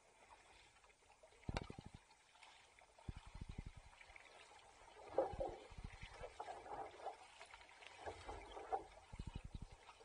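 Faint water splashing and sloshing, broken by short runs of low thumps, as of a small craft being paddled on calm water.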